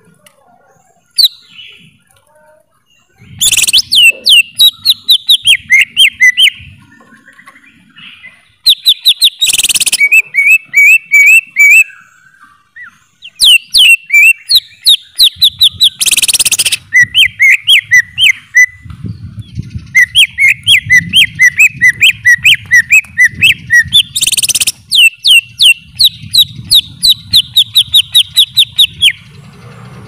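Cucak ijo (green leafbird) singing long runs of rapid, clear whistled notes, several a second. The runs are broken three times by a short harsh rasping burst.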